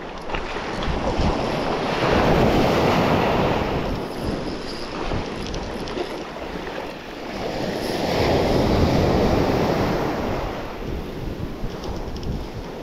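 Surf breaking and washing up a beach in two surges about six seconds apart, each swelling and fading over a few seconds, with wind buffeting the microphone.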